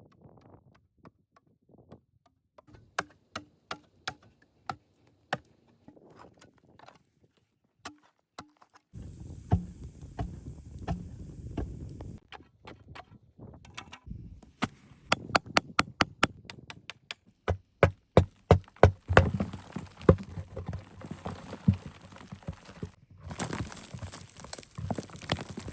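A tool striking wood again and again: sharp knocks and chops, some spaced out and some in quick runs of about five strikes a second, the loudest runs coming in the second half.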